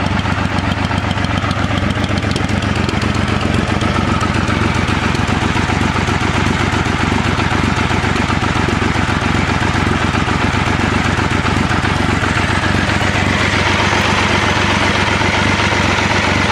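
Triumph Adventurer 900's three-cylinder engine idling steadily, turning a little brighter near the end.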